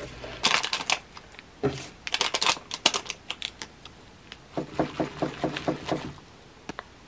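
Paper lid of an instant noodle cup peeled back with a crinkle, then chopsticks clicking and scraping as they mix sauced noodles in the paper cup, in quick runs of small clicks.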